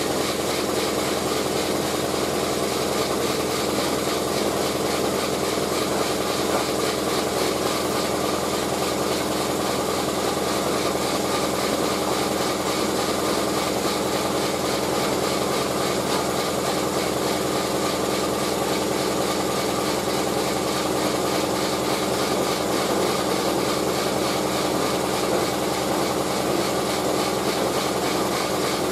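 Steady machine hum, like a motor running, with several held tones over an even hiss.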